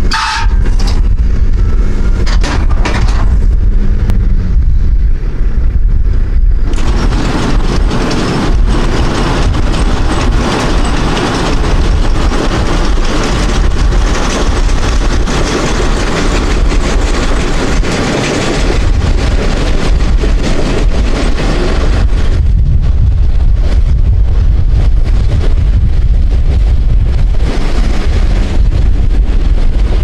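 John Deere tractor pulling a John Deere 535 round baler through hay, engine and baler running as the rig moves away. A steady engine hum at first turns into a louder, noisier spell from about seven seconds in until about twenty-two seconds, over a heavy low rumble throughout.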